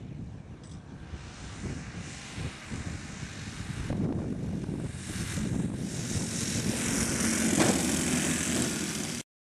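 The four OS 91 four-stroke glow engines of a 1/12-scale model C-130 Hercules running as the model comes in low and lands, growing louder as it nears and passes close. The sound cuts off suddenly near the end.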